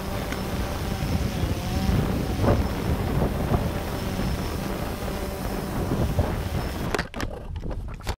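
Steady outdoor rumble with a faint hum and wind on the microphone, broken by a sharp knock about two and a half seconds in and a smaller one a second later; the sound breaks up and cuts out near the end.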